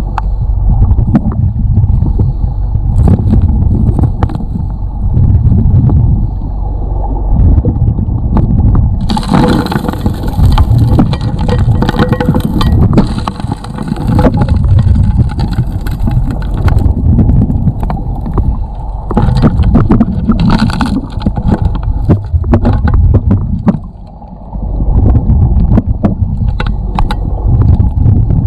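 Suction gold dredge heard from underwater at its nozzle: a muffled, pulsing rumble of the dredge running, with gravel and stones clicking and knocking as they are sucked up and shifted. A rushing hiss joins about a third of the way through and fades near the last quarter.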